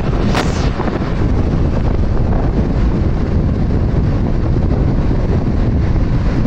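Loud, steady wind buffeting the microphone of a vehicle moving along a road, with the rumble of travel beneath it.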